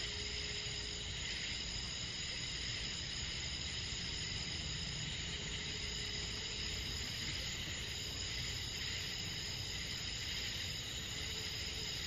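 Summer night insect chorus of crickets and other insects, a steady shrill trilling whose highest band breaks off and resumes every few seconds, over a constant low rumble.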